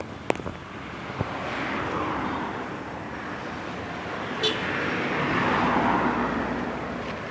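Road vehicles passing by with a rushing noise that swells and fades twice, plus a few short clicks near the start and a brief sharp sound midway. No horn melody is heard.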